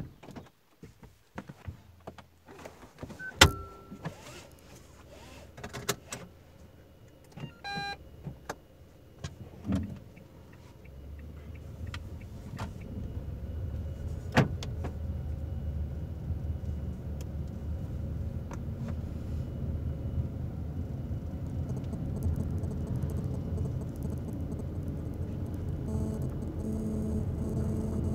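Inside the cabin of a Nissan Magnite Turbo CVT (1.0-litre turbocharged three-cylinder): at first a few clicks and knocks and a short electronic beep. Then, from about eleven seconds in, the engine and road noise rise steadily as the car pulls away and gathers speed, ending in a steady engine drone under the CVT.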